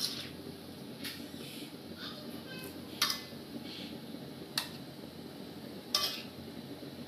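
Spatula stirring a chunky mixture in a wok, scraping and knocking against the pan, with five sharp clinks spaced a second or two apart.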